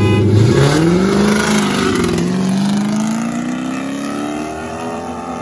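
Car engines revving hard as the cars launch from a standing start in a street drag race. The engine note climbs steeply, dips for a gear shift about two seconds in, then keeps rising as the cars pull away and fade.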